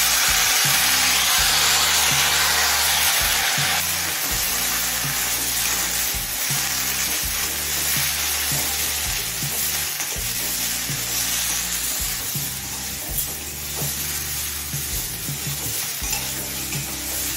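Freshly chopped flat beans sizzling in hot mustard oil in a metal wok, loudest in the first few seconds after they go in. A metal spatula stirs and scrapes them through the pan over high flame.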